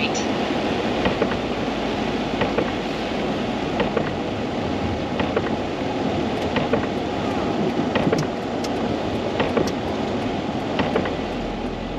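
Campervan driving on wet town streets, heard from inside the cab: steady road and tyre noise with scattered light ticks, and a low engine hum coming up near the end.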